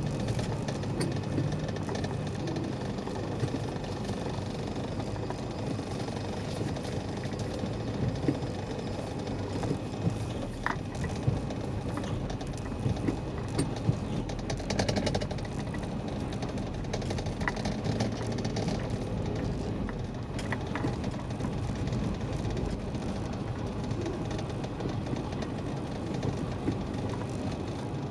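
Car driving through city traffic: steady engine and road noise, with a few brief clicks and a short hiss about halfway.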